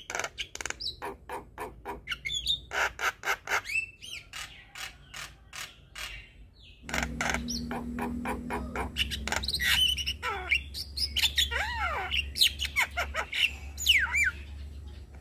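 Javan myna song: rapid runs of sharp chattering notes for the first half. After about seven seconds, over a low hum, comes a more varied phrase of whistles and down-slurred calls.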